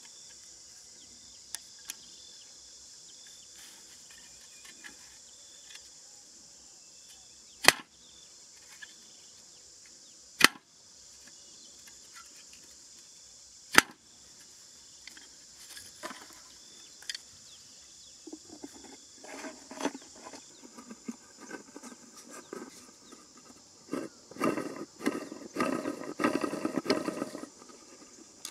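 Steady high insect chorus, crickets or cicadas, with three sharp clicks in the first half. In the last third come rubbing, scraping and knocking as a plastic bottle and bamboo sticks are handled, growing busier toward the end.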